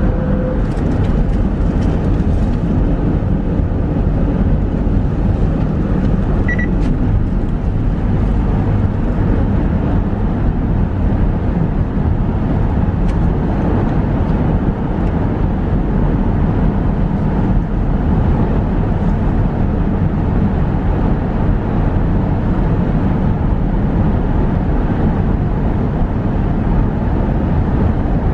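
Steady road noise and engine hum of a car driving at highway speed, heard from inside the cabin.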